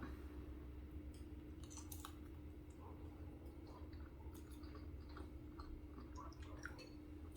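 Faint chewing of soft mac and cheese, with scattered small wet clicks of the mouth, over a low steady hum.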